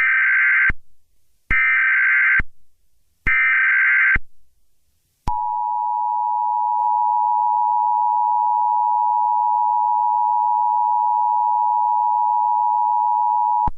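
Emergency Alert System tones: three short bursts of digital SAME header data, each under a second and spaced about a second apart. They are followed by the EAS two-tone attention signal (853 Hz and 960 Hz sounded together), held steady for about eight seconds. The sequence marks the start of an emergency alert message.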